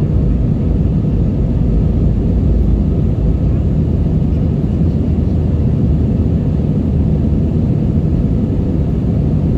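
Steady low rumble of an Airbus A320-232 in the cabin, climbing after takeoff: its IAE V2500 turbofan engines and air rushing past the fuselage, heard from a window seat over the wing.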